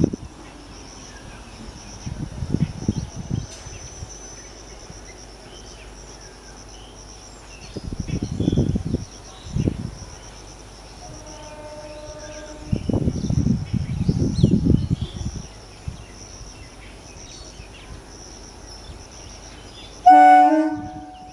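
Insects chirring steadily in the background, with irregular low rumbles, while an electric multiple unit train approaches. Near the end the train's horn sounds loudly for about a second.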